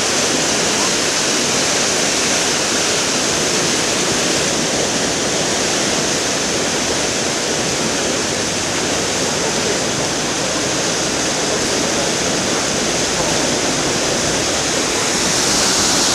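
Water rushing and churning into a canal lock chamber through the upper gate's sluices as the lock fills and lifts the boats: a steady, heavy rush of turbulent water that grows a little louder and hissier near the end.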